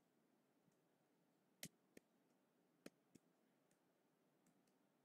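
Near silence with a few faint computer keyboard key clicks, coming in two pairs about a second apart in the middle.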